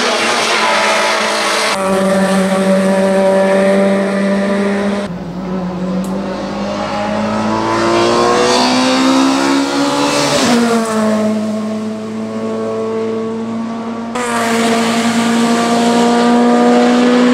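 Peugeot 207 S2000 race car's two-litre naturally aspirated four-cylinder engine at high revs, pitch climbing and falling repeatedly with gear changes and braking into corners. The sound changes abruptly three times.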